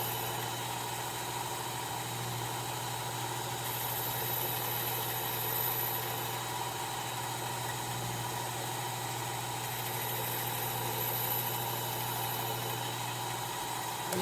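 Powered knife-sharpening grinder running steadily during sharpening, with a constant hum and whir. Right at the end it is switched off and starts to wind down, its pitch falling.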